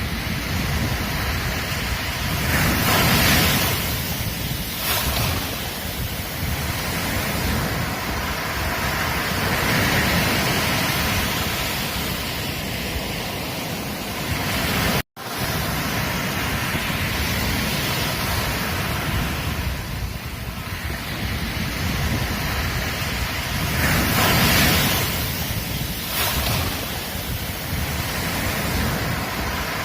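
Ocean waves breaking and washing on a beach, a continuous surf sound that swells louder several times. The sound cuts out for an instant about halfway through.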